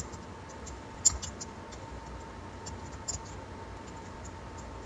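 Computer keyboard keys clicking: a few scattered, faint keystrokes as code is typed.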